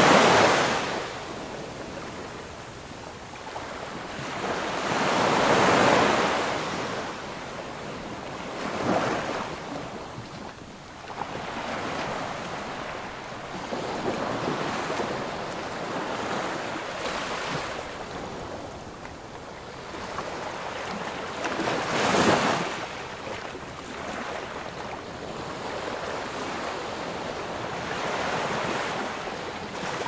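Ocean surf washing onto a beach: waves break and hiss in slow swells every few seconds, then draw back. The strongest come right at the start and about twenty-two seconds in.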